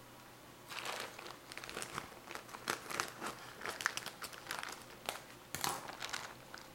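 Packaging crinkling and rustling as it is handled, in irregular bursts with sharp crackles, starting about a second in.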